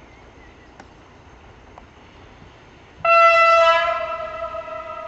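A passenger train's horn sounds one long blast about three seconds in, loud at first and then fading but still sounding at the end, as the train approaches.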